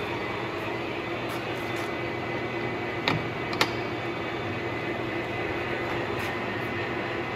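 Clausing Colchester Mastiff 1400 gear-head engine lathe running, its headstock gearing and carriage feed giving a steady hum. Two sharp clicks come about half a second apart a little after three seconds in.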